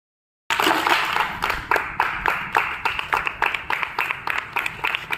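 Several people clapping in a quick, irregular run that starts abruptly about half a second in and slowly thins out.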